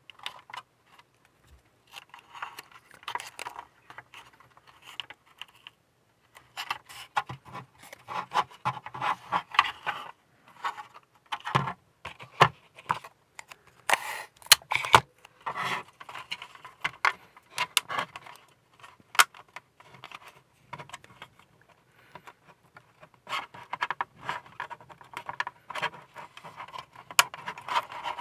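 Hands handling plastic model-kit parts and masking tape: irregular clicks, taps and rustling of styrene parts, with masking tape pulled from its dispenser and torn off about halfway through.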